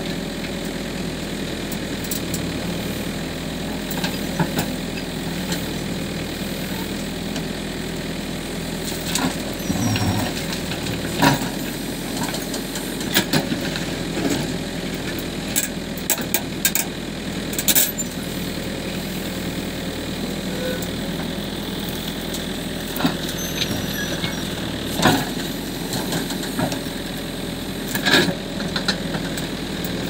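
Backhoe loader's diesel engine running steadily as its arm digs and loads earth, with scattered sharp knocks and thuds from the bucket and soil striking the truck's steel body.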